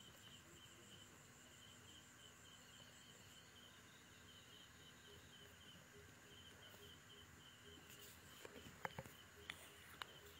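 Near silence: faint insects trilling in a steady pulsing chirr, with a few soft clicks near the end.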